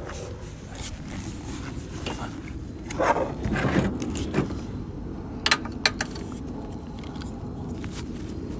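Scraping and rustling as a person slides on his back under the car, then two sharp metallic clinks of a socket wrench being set on the oil pan drain plug.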